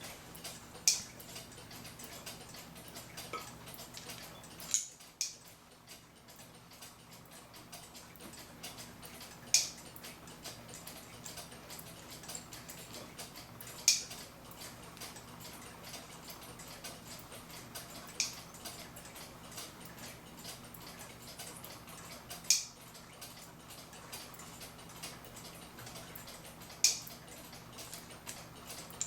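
Sharp, high clicks at an even pace, seven in all, about one every four seconds, over a faint steady hum.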